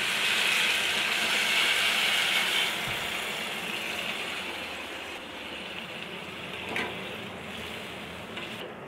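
Water poured into a hot kadai of oil-fried masala and potatoes, hissing and sizzling at once, loudest in the first few seconds and then slowly dying down. A spatula knocks against the pan once near the end.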